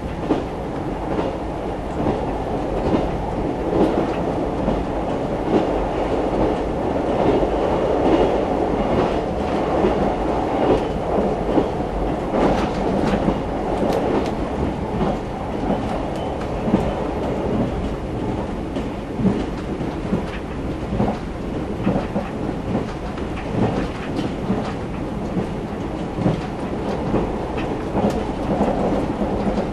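JR 381 series electric multiple unit running at speed, heard from inside the passenger car: a steady rumble of running noise, with frequent clicks from the wheels passing over the rails.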